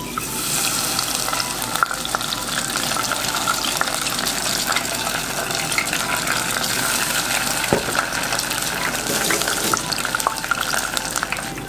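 Batter-coated shiso leaves deep-frying in hot oil in a tempura pot: a steady, dense sizzle with many small crackles, starting as the first leaf goes into the oil.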